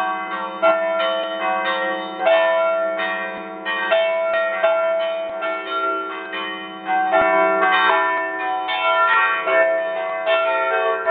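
Church bells in the belfry struck rapidly by ringers pulling ropes tied to the clappers: a loud peal of overlapping strokes, about two or three a second, heard close up beside the bells.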